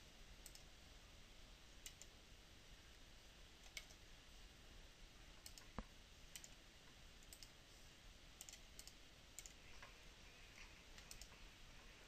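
Near silence broken by about a dozen faint, irregular computer mouse clicks as playback devices are selected and right-clicked in a settings menu.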